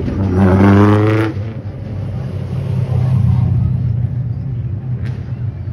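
A historic race car's engine revving hard as it accelerates away, its pitch climbing for just over a second and then cutting off, followed by a steady low engine rumble.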